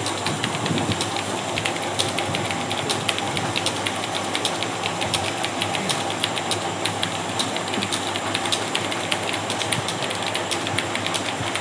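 Typing on a computer keyboard: a fast, uneven run of key clicks, several a second, over a steady background hiss.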